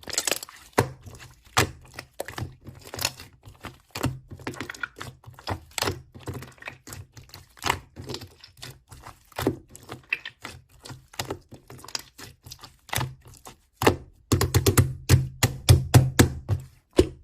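Irregular sharp clicks and knocks, one after another, over a low hum, with a dense run of rapid clicks near the end.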